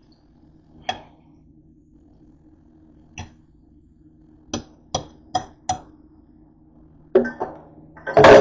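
Light clicks and knocks of kitchenware against a nonstick frying pan and plate: single taps, then four quick ones in a row, then a louder clatter and a heavier knock near the end, over a steady low hum.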